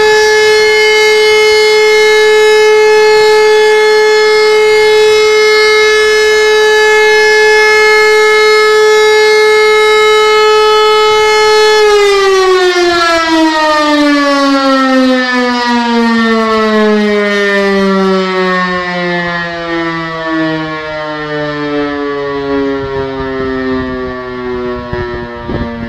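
Electromechanical civil-defence siren sounding one steady, unbroken tone: the one-minute continuous tone used in Germany to signal the all-clear (Entwarnung). About twelve seconds in it switches off and winds down, its pitch falling slowly as the rotor coasts to a stop.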